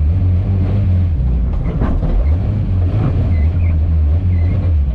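Lada Niva on the move: a loud, uneven low engine and drivetrain rumble with a few sharp knocks, the clearest about two and three seconds in.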